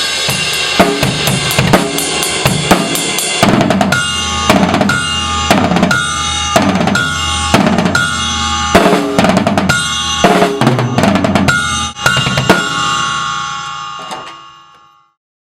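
Drum kit playing a groove with bass drum and snare, a Paiste 2002 10-inch Mega Bell bell cymbal struck along with it and ringing between hits. The playing stops on a last hit about twelve and a half seconds in and the ring fades out to silence.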